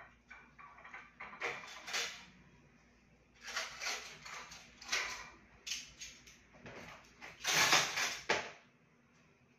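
Irregular knocks, scrapes and rattles of things being handled and moved about at a kitchen cabinet. The loudest is a longer scraping clatter near the end.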